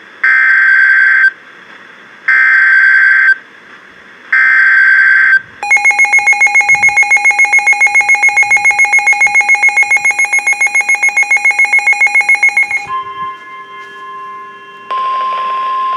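Emergency Alert System tones on NOAA Weather Radio announcing a severe thunderstorm warning. Three short, identical bursts of SAME digital header data come about a second apart, then a loud attention tone pulsing rapidly, about five times a second, for some seven seconds. This gives way to quieter steady tones, with a louder single steady tone near the end.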